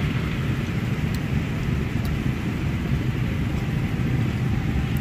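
Go-karts running on the track, heard as a steady low engine drone.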